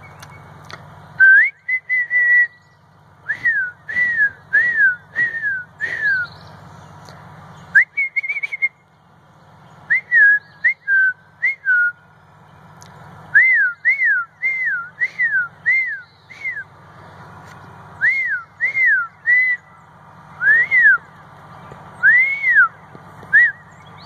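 A person whistling a bird call to draw in birds: short, loud slurred notes, each rising and then falling, given in quick runs of several with brief pauses between runs.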